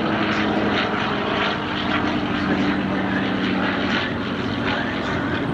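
Propeller engine of a First World War Fokker replica aircraft droning steadily in flight during a display; the engine note shifts slightly about four seconds in.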